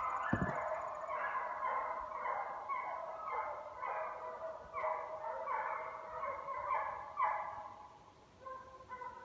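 A pack of hunting hounds baying in chorus on a chase, one or two overlapping bawls a second. The calls fade out about seven and a half seconds in, with a few faint ones after.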